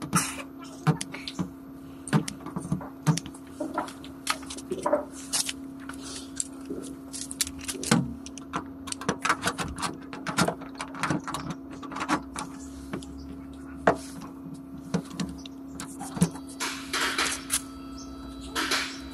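Dent-puller tools at work on a car door panel: a dense run of sharp metallic clicks and clinks as the welder tip tacks wavy wire to the panel and steel puller hooks clatter onto the wire, over a steady hum.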